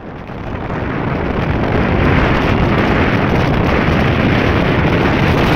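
Wind rushing over the microphone of a camera carried on a moving motorcycle, growing louder over the first two seconds and then holding steady, with the bike's running noise under it.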